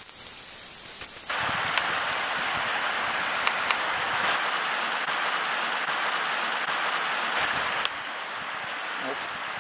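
Running water rushing steadily; it grows louder about a second in and drops back near the end, with a few small clicks over it.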